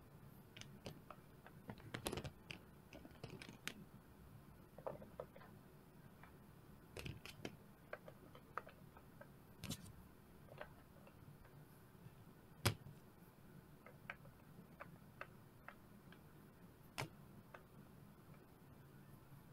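Silicone pop-it Tetris pieces handled and pressed into a plastic puzzle tray: faint, irregular clicks and taps, with one sharper knock about two-thirds of the way in.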